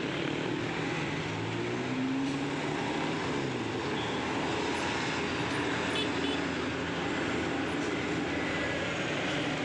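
Steady roadside traffic noise, with a heavy vehicle's engine running low and its pitch shifting slightly in the first few seconds.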